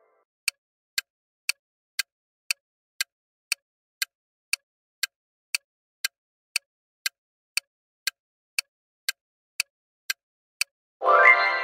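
Countdown timer tick sound effect, sharp even ticks about two a second, counting down the time left to answer a quiz question. Near the end a bright ringing chime sounds and fades, signalling that time is up.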